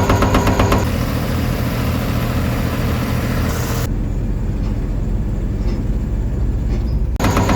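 Sheet pile driving machinery running hard: a fast, even pulsing rattle at the start and again near the end, and a steadier engine drone between. In the second half the sound drops abruptly to a low rumble with the treble cut off for a few seconds.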